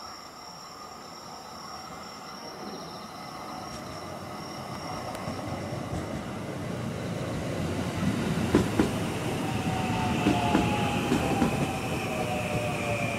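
Hapi-Line Fukui 521 series two-car electric train drawing in and running past close by, its rumble growing steadily louder. Its wheels click over rail joints from about two-thirds of the way in, and a motor whine falls in pitch as the train slows for the station stop.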